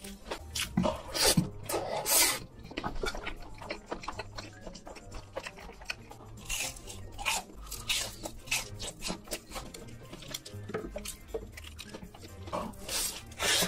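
Close-miked eating sounds: an irregular string of sharp crunches and wet chewing and mouth noises as crumb-coated fried food and spicy noodles are eaten.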